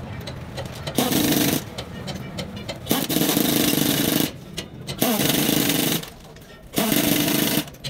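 Four loud bursts of a hammering power tool, each lasting about half a second to a second and a half, with quieter gaps between them.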